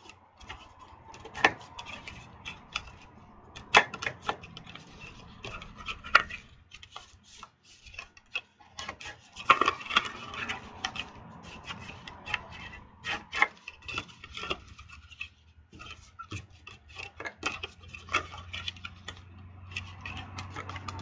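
Cardstock being handled, folded and creased by hand: irregular taps, rustles and rubbing strokes of paper against paper and the work surface.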